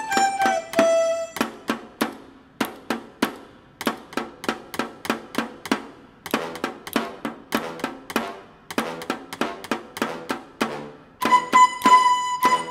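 Dizi (Chinese bamboo flutes) play a falling phrase that ends about a second in. A run of sharp, even stick taps on a hard board follows, about four a second with short breaks. The flutes come back in near the end.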